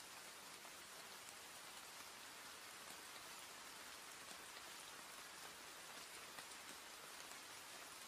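Faint, steady rain falling: an even hiss with the light patter of individual drops.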